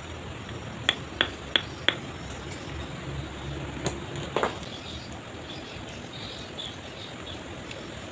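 A river stone being tapped into a fresh mortar bed: four quick sharp taps at about three a second, then two more knocks near the middle, over a steady low background rumble.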